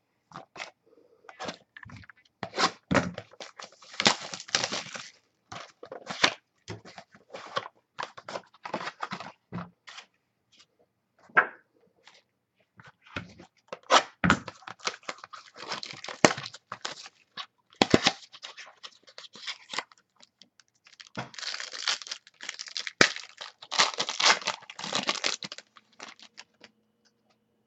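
Trading card packs and wrappers being torn open and cards handled: irregular tearing, crinkling and crackling in clusters, falling quiet shortly before the end.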